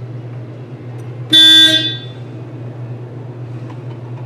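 1961 Volkswagen Beetle's horn sounding by itself in one short blast of about half a second, a little over a second in: the horn circuit is grounding out through the steering column.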